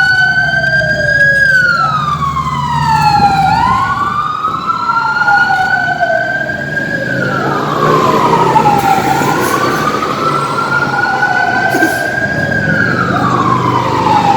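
Emergency-vehicle siren wailing: its pitch rises slowly and then falls quicker, about every five and a half seconds, over a steady low engine rumble.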